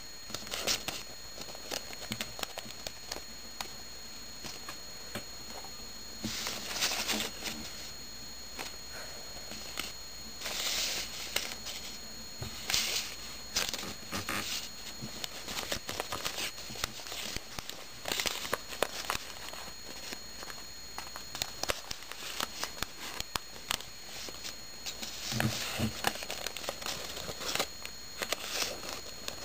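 Square origami paper rustling and crinkling in irregular bursts as sonobe units are folded, creased and handled, with small clicks and taps among them.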